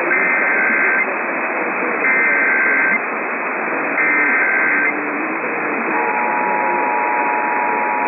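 Emergency Alert System test received on AM radio: three short bursts of SAME header data tones about a second apart, then the two-tone attention signal starts about six seconds in and holds steady. Heavy static hiss from the AM reception runs under it all.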